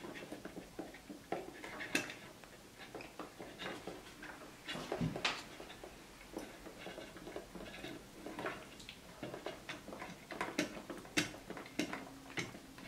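Scattered light clicks and taps of plastic cable connectors and wires being handled and plugged in: a SATA power cable fitted to a solid-state drive and a circuit board. A slightly louder knock about five seconds in.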